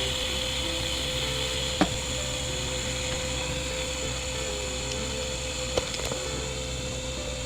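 Small gas torch flame hissing steadily while it shrinks heat-shrink tubing over a soldered wire splice, with a couple of light clicks about two seconds in and again near six seconds.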